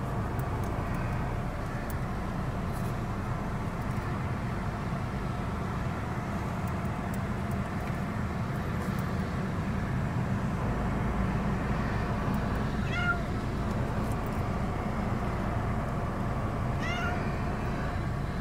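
Domestic cat meowing twice, short calls a few seconds apart in the second half. Under them runs the steady low rumble of the car, heard inside the cabin.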